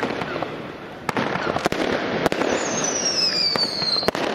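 Diamond 'Space Walk' firework battery firing: a string of sharp bangs over a steady rushing hiss. In the second half a whistle glides down in pitch and ends at a bang near the end.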